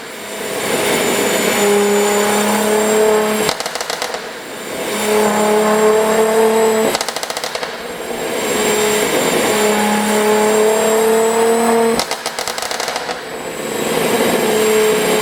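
A Mercedes-AMG C43's twin-turbo V6 is revved up and held for a second or two, then crackles and pops on the overrun each time the throttle is let off. Three rev-and-crackle cycles, and a fourth rev starts near the end. The popping comes from a tune made to produce exhaust pops and bangs.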